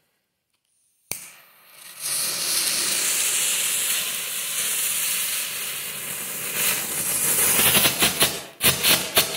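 Strobe-light flash pot firework burning. After a second of dead silence it starts suddenly and settles into a loud, steady hiss. Near the end this turns into rapid sharp cracks, several a second, as the strobe effect sets in.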